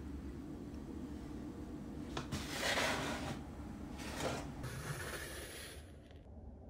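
Dark metal baking pan slid across a kitchen countertop, scraping twice, about two and four seconds in, over a steady low hum.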